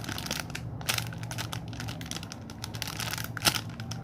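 Plastic packaging crinkling as it is handled, in quick irregular crackles, with one sharper crackle about three and a half seconds in.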